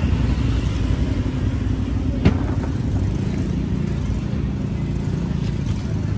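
Street traffic: motor vehicle engines running steadily, with one sharp click about two seconds in.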